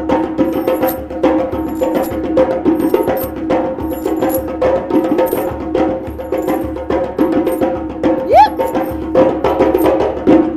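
African drum music: a fast, busy hand-drum rhythm with sharp, clicking strokes over a steady ringing undertone. A short rising call cuts in about eight seconds in.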